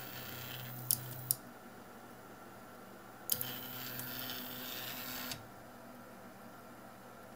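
Stepper motor on a RepRap Prusa i2's X axis driving the carriage along its smooth rods by belt in two short moves with a pause between: a first move of about a second and a half ending in two sharp clicks, then a second move of about two seconds starting three seconds in.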